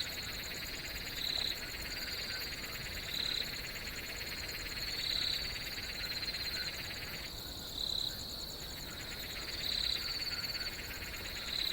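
A steady, trilling chorus of calling animals, with a short louder call repeating about every two seconds.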